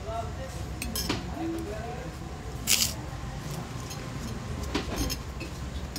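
A metal spoon clicks and scrapes on a glass plate as a man eats rice, over a steady low rumble and faint voices. A short hiss about three seconds in is the loudest sound.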